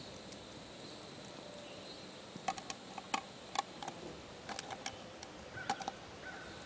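A can opener being worked around the rim of a can, giving a few irregular clicks and ticks that start about two seconds in.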